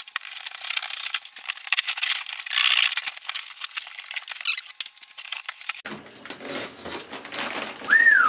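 Cardboard shipping box being torn open by hand: packing tape ripping and cardboard flaps scraping and rustling in a run of short scratchy strokes, then plastic wrap crinkling, with a short high squeak sliding up and down near the end.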